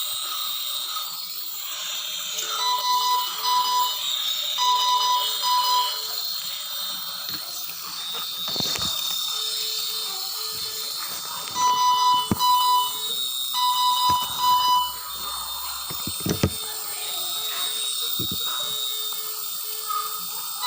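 A string of short electronic beeps on two alternating pitches, coming in groups with brief gaps, over a steady hiss. A few sharp knocks come in between.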